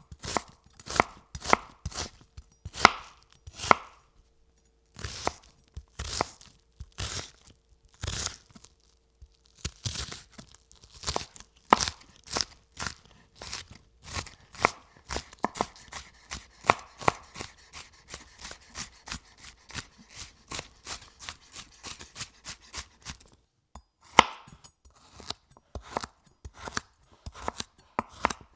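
Knife chopping food on a cutting board: sharp single chops, spaced out at first, then a quicker run of about three or four chops a second in the middle, then slower again near the end.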